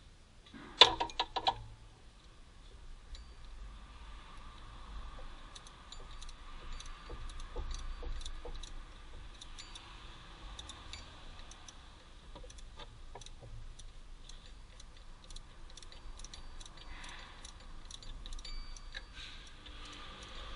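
Scattered light clicks and ticks of hand work in a car's engine bay, as hoses, fittings and a hand tool are handled. There is a short, loud clatter of a few sharp clicks about a second in.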